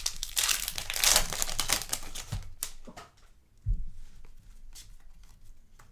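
Trading cards being handled and flipped through: a rustling, crinkling stretch for the first couple of seconds, then scattered light clicks and taps.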